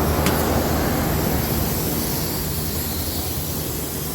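Steady fan and motor noise of running rooftop air-conditioning equipment, with a low hum under it and a light click near the start.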